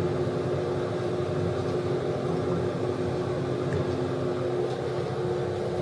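Original Otis elevator's machinery giving a steady low hum with several steady tones, heard inside the car.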